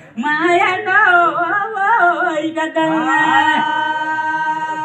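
A voice singing long, wavering, winding phrases over a steady held drone note.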